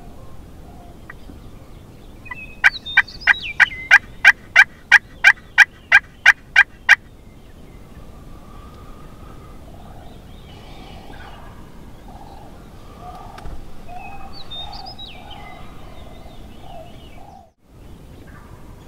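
A run of about a dozen loud, evenly spaced turkey yelps, roughly three a second, lasting about four seconds. Quieter, lower calls follow later.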